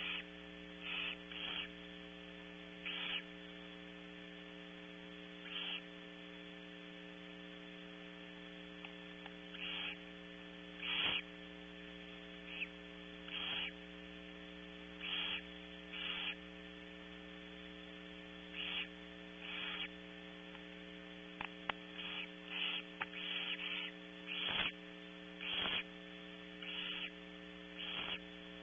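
Barn owl nestlings giving short rasping begging hisses, coming irregularly every second or two and more closely together near the end, over a steady electrical mains hum.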